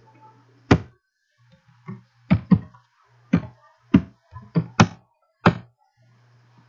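Computer keyboard keys typed one at a time: about nine sharp clicks at uneven spacing over some five seconds, as a password is entered.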